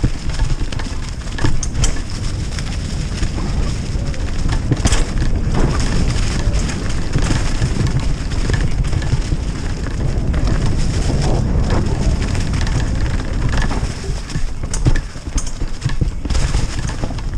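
Mountain bike ridden fast down a leaf-covered dirt trail: tyres rolling and crunching over fallen leaves, roots and rocks, with the bike clattering in frequent clicks and knocks. A heavy low rumble of wind on the camera microphone runs under it.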